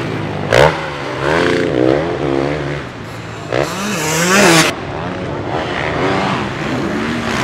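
Motocross bike engines racing over the jumps, the throttle opening and closing so the pitch climbs and drops again and again. There is a sharp short blip about half a second in, and the loudest, highest rev comes about halfway through.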